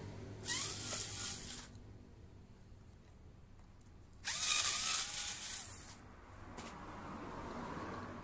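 Cordless power tool motor run in two short bursts about three seconds apart, each lasting a second or so, its pitch rising as it spins up.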